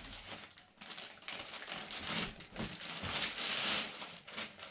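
Thin plastic courier mailer bag crinkling and rustling as it is torn and pulled open by hand, in irregular bursts that are loudest about three to four seconds in.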